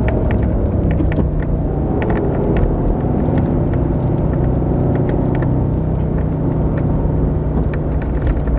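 Steady rumble of road and engine noise inside a moving car, with scattered sharp ticks of rain hitting the car.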